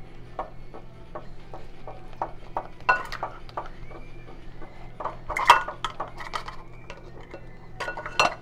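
A spatula knocking and scraping in a glass mixing bowl and plastic measuring cups clinking against it as powdered sugar is stirred into cream cheese frosting. Irregular light clicks throughout, with louder clusters about three seconds in and about halfway through.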